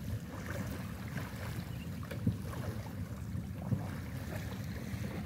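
Wind rumbling on the microphone over shallow sea water at the shore, with faint voices in the background. Two brief thumps stand out, about two and three and a half seconds in.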